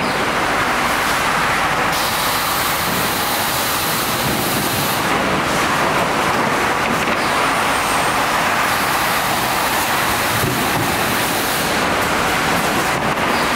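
Two-head plywood sanding machine running, a loud, steady rushing noise with no clear rhythm.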